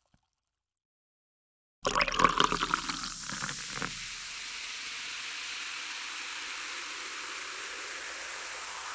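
Silence, then about two seconds in a water sound starts abruptly: splashing and gurgling for a couple of seconds, settling into a steady rush of running water.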